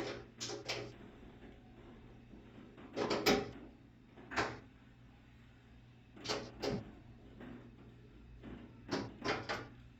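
Short clicks and clunks in several clusters a few seconds apart, from screws and hand tools being worked on the panels of a front-load washer.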